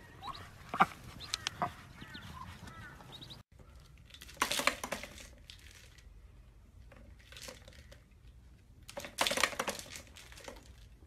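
Ducklings peeping, with a few sharp clicks. After a cut, a plastic windmill treat toy rattles in two bursts as a rabbit spins it, the loudest about a second and a half in and about six seconds in.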